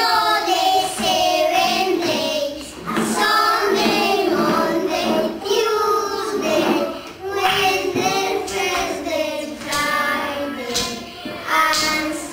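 Young children singing a days-of-the-week song in English, one held note after another.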